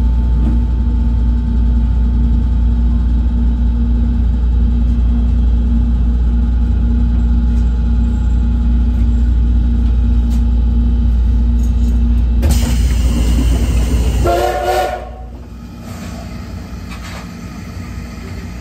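Steady low rumble and hum of a stopped steam-hauled train, heard from inside the carriage. About 12 seconds in a hiss rises, followed by a short blast of the C11 steam locomotive's whistle, a chord of several tones.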